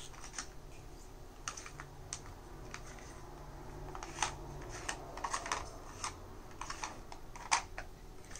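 Hard plastic parts of a dog puzzle feeder clicking and clattering as fingers slide its covers and turn its disc. The clicks are irregular and sharp, some in quick clusters, the loudest about four and seven and a half seconds in.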